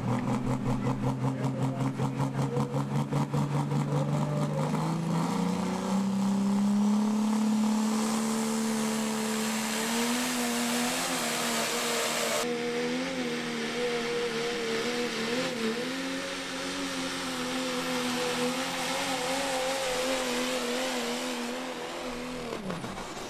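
Turbocharged diesel pulling truck's engine under full load dragging the sled. It pulses at first, then climbs in pitch over the first several seconds and holds with a wavering pitch. Near the end the pitch drops away as the truck runs out of power and shuts down.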